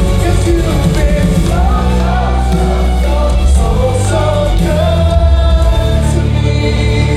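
Worship band playing a Christian worship song, with singing over the music.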